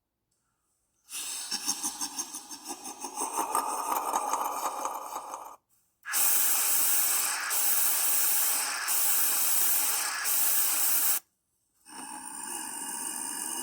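Demon sound effects: breathy, hissing noises in three separate takes. A rasping hiss with a fast flutter starts about a second in. After a short break comes a louder, steady hiss for about five seconds. Near the end, after another break, a third hiss swells up.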